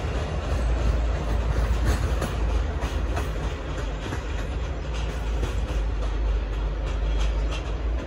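Passenger carriages of a departing locomotive-hauled train rolling away over points. The wheels give repeated clacks over the rail joints, above a steady low rumble.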